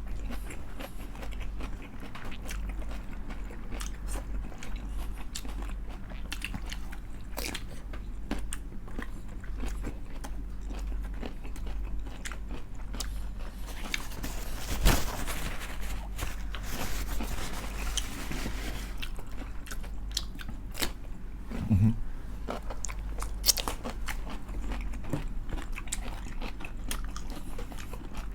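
Close-up chewing and biting of crispy fried chicken skin: scattered sharp crunches with wet chewing between them, the loudest crunch about halfway through.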